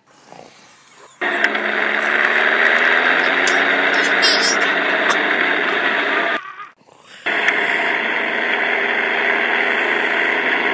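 Recorded tractor engine running, played back loud from a tape recorder. It starts abruptly about a second in, cuts out briefly after about six seconds, then comes back.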